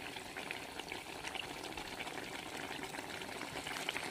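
Peri peri chicken bubbling in its pan while its liquid cooks down, a steady low hiss with many small crackles.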